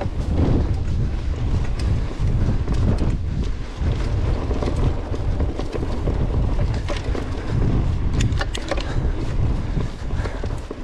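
Wind buffeting a GoPro action camera's microphone while a mountain bike rolls over a rough dirt singletrack, giving a steady deep rumble mixed with tyre noise. Scattered sharp clicks and rattles from the bike over bumps are heard, bunched together about eight seconds in.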